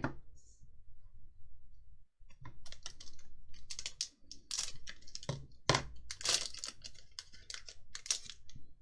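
Magic: The Gathering trading cards being handled and flicked through by hand. After a quiet couple of seconds, a run of irregular crisp clicks and rustles.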